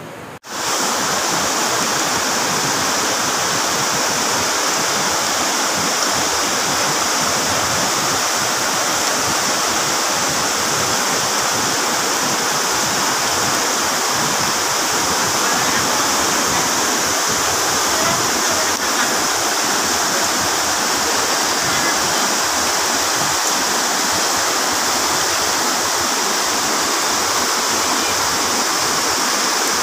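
Brown floodwater of a swollen, overflowing river rushing and pouring over a low weir, a steady loud roar of water that starts about half a second in.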